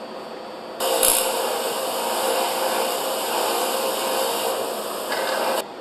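Wire wheel on a Delta bench grinder brushing caked concrete off a concrete-pump piston: a loud, harsh, steady scratching over the grinder's running hum. It starts suddenly about a second in, with a sharp click just after, and cuts off suddenly near the end.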